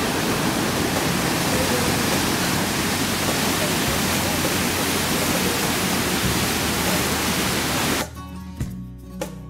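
Large waterfall, a wide river pouring over a rock ledge, giving a loud, steady rushing roar. It cuts off suddenly near the end, replaced by acoustic guitar music.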